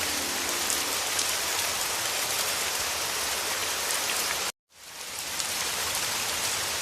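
Heavy rain falling in a steady dense hiss, which cuts out abruptly about four and a half seconds in and fades back up within a second.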